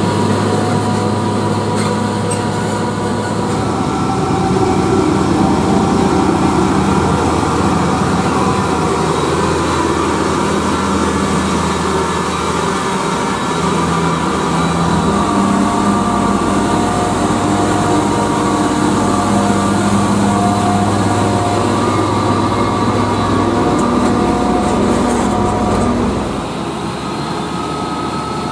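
UD Quester trucks' GH8E diesel engines running, heard in clips of several trucks one after another. The engine note changes about halfway through and drops a little about two seconds before the end.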